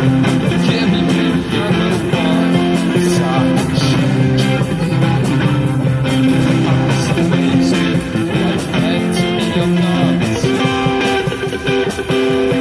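Live street-band music: guitar over a steady beat of drumming on plastic buckets, with held melody notes that fit the band's clarinet.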